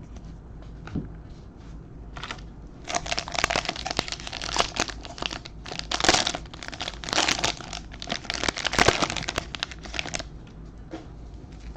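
Plastic wrapper of a trading card pack crinkling in bursts as it is torn open and handled, for several seconds, then it stops.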